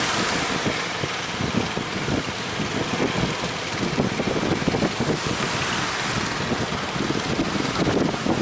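Strong wind buffeting the microphone in irregular gusts over a steady rushing noise of sea and surf.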